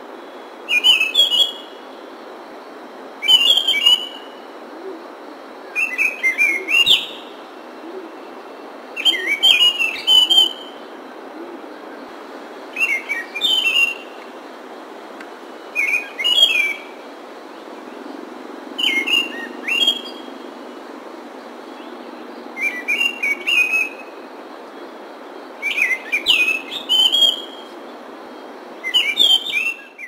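Chestnut-backed thrush (Geokichla dohertyi) singing: short song phrases repeated about every three seconds, some ten in all, over a steady recording hiss. The recording cuts off at the end.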